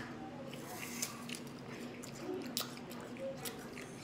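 Faint chewing of mouthfuls of raw apple, with a few scattered crisp clicks and crunches.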